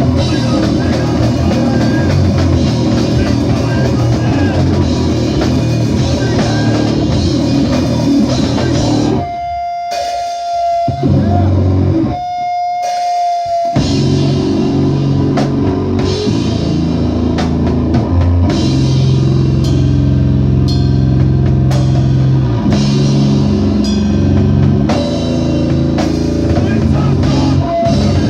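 Live rock band playing loud, with drum kit and electric guitar. About nine seconds in the band drops out to a lone held high note, sounded twice, then the full band crashes back in about five seconds later.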